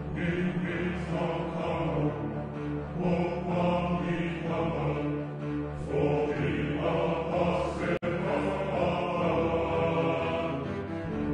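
Trailer music with low, sustained chanting voices over held chords. The sound drops out for an instant about eight seconds in.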